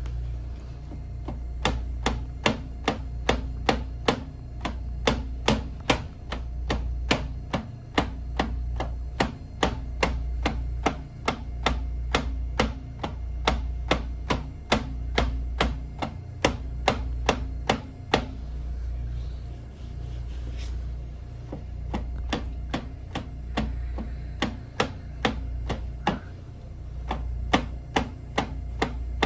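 Repeated instep strikes of a foot against a sheet-metal corner, sharp knocks at about two to three a second with a brief pause about two-thirds through, as instep-kick conditioning, over a steady low hum.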